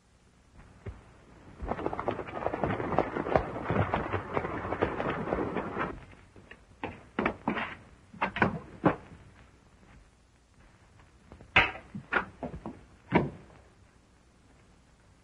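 Horses' hooves clattering for about four seconds, then scattered knocks and thumps, with a few sharper ones near the end.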